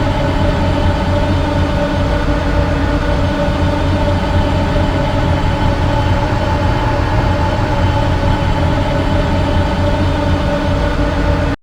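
TIE Silencer starfighter exterior engine sound effect, a loopable engine drone: a steady, unbroken hum of several held tones over a low rumble. It cuts off abruptly at the very end.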